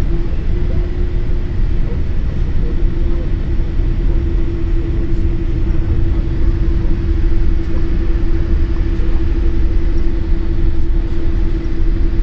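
Cabin noise inside a Boeing 787-8 airliner on the ground before takeoff: a loud, steady low rumble with a constant hum that grows stronger about three seconds in.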